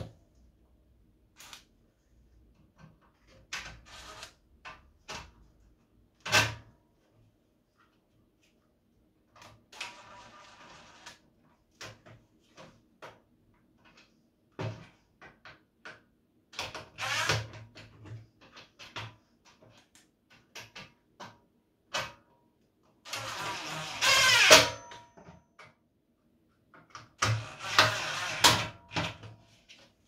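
Irregular knocks, clatter and scraping of plastic parts and a screwdriver being handled and fitted inside the stainless-steel drum of a Screwfix Titan TT777VAC wet-and-dry vacuum, with a longer, louder scraping rattle a little past two-thirds of the way through.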